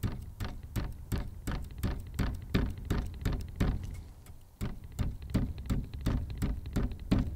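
Needle voicing tool jabbed again and again into the felt of a Yamaha C7 grand piano hammer: sharp clicks with a dull thump, about three or four a second, with a short pause about four seconds in. The hammer is being needled below its strike surface to soften a note that is too loud.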